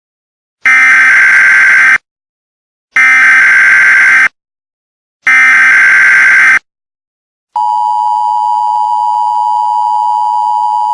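Emergency Alert System header: three loud bursts of SAME digital data tones, each a little over a second long with about a second's gap between them. After the third burst comes the steady EAS two-tone attention signal.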